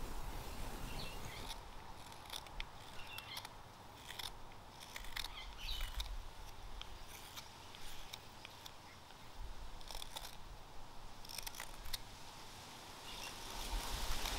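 Open-curve hook knife cutting thin shavings from the bowl of a green-wood jacaranda spoon: a series of short, quiet scraping cuts at an irregular pace.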